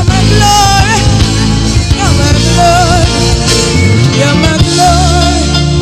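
Live gospel worship music. A backing band holds sustained low chords while a lead voice sings a wavering, ornamented melody without clear words.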